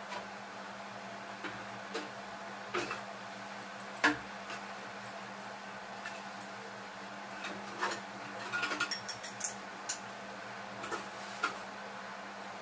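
Steel dishes and plates clinking and knocking against each other and a stainless-steel sink as they are washed by hand. The taps come irregularly, with the loudest knock about four seconds in and a quick run of small clinks just past the middle, over a steady low hum.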